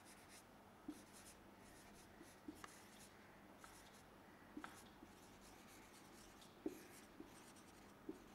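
Marker pen writing on a whiteboard: faint scratchy strokes with small taps as the letters are formed.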